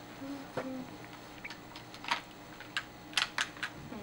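Scattered light clicks and taps of a boxed nail polish set being handled: small bottles in their plastic tray and the packaging knocking together, a few at a time in the second half.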